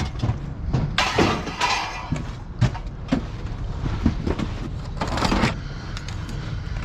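Irregular clanks and knocks of scrap metal and old electronics being handled and tossed into piles, about one or two a second, over a steady low rumble.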